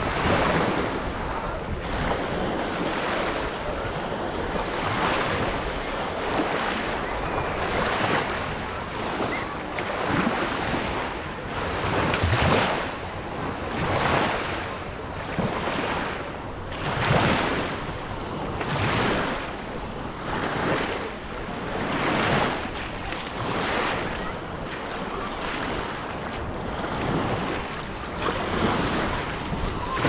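Surf washing onto a beach, with wind buffeting the microphone; the wash swells and fades every second or two.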